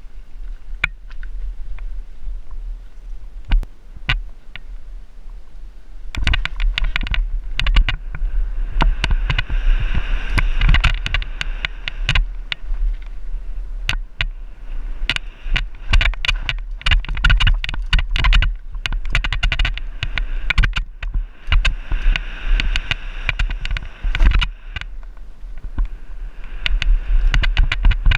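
Downhill mountain bike descending a rocky dirt trail: the tyres crunch over stones and the bike rattles, with frequent sharp knocks from impacts over a steady low rumble. It gets louder and busier from about six seconds in.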